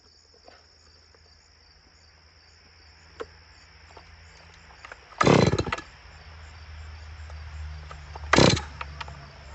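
Holzfforma G660 92 cc chainsaw, a Stihl 660 replica, being started: a loud half-second burst about five seconds in, then the engine running low and steady, with a second short loud burst near the end. Crickets chirp steadily throughout.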